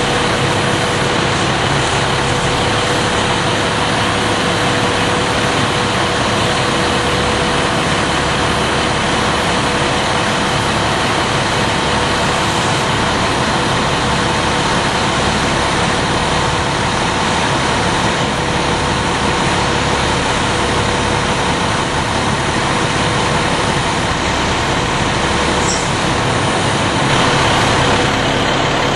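Fire truck engine running steadily: a loud, constant drone with a steady whine on top.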